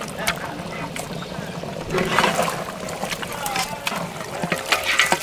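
Boiled goat leg pieces being dropped into a large aluminium pot of thick mutton gravy and stirred with a ladle: irregular wet sloshing and splashing with sharp knocks.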